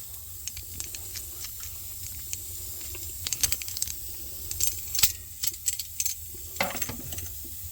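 Sharp metallic clicks and clinks of pinching pliers being worked and tightened on copper refrigerant tubing, coming irregularly and more often from about three seconds in, over a steady faint hiss.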